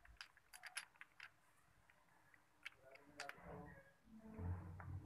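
Faint, light metallic clinks as a motorcycle transmission gear shaft is handled, its gears tapping: several in the first second and a couple more about three seconds in. A dull low rumble of handling follows near the end.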